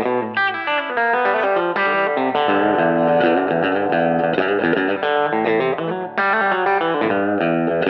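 Connexion Telecaster-style electric guitar played through a Mooer GE300 Lite amp modeller with a rockabilly tone: a run of fast picked single-note lines, with a harder, brighter attack about six seconds in.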